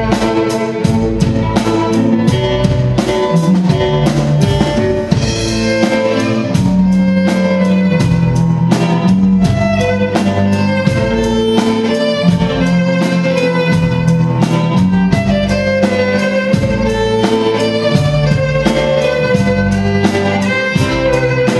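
A rock song played by a string ensemble, violins carrying the melody over bass, guitar and a steady drum beat.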